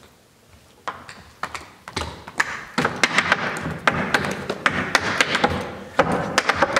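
Clogging steps: hard shoes striking a wooden dance board, a few taps about a second in, then a fast, dense rhythm of taps from about three seconds in.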